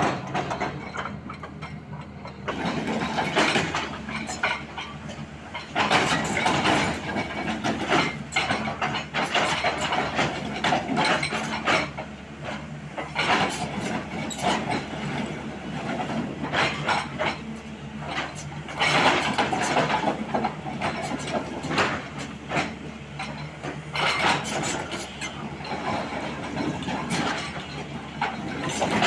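Sany 215 excavator's diesel engine running steadily under load while its hydraulic breaker hammers hard rock in runs of rapid blows lasting several seconds, with short pauses between runs.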